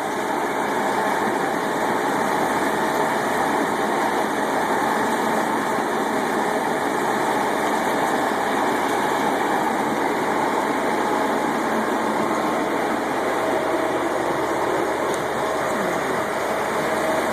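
Concrete pump truck's diesel engine running steadily as it pumps concrete.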